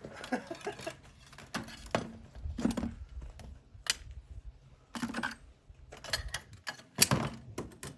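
Irregular clicks and clatter of hard plastic and glass phones being handled, with a sharper knock about seven seconds in.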